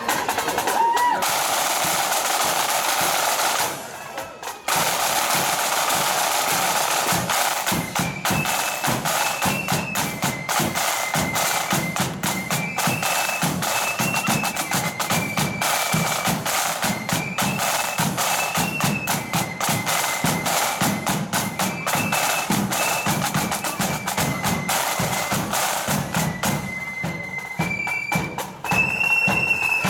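Marching flute band: a line of snare drums playing a rolling marching beat, stopping briefly about four seconds in, then the flutes come in with a high melody over the drums about eight seconds in.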